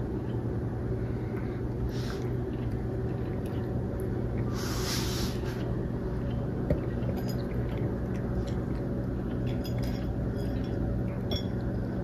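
Cats eating dry kibble from a raised ceramic bowl: small crunches and light clicks against the bowl, over a steady low drone, with a short hiss about halfway through.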